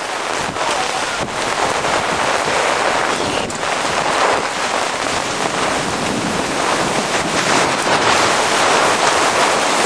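Heavy thunderstorm rain and strong gusting wind, a loud steady rush with wind buffeting the microphone.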